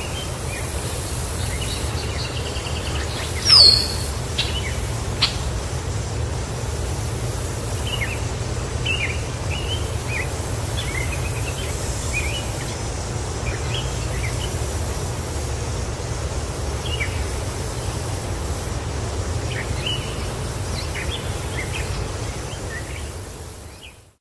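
Outdoor ambience: small birds chirping now and then over a steady low rumble, with one brief shrill call about three and a half seconds in. It fades out at the end.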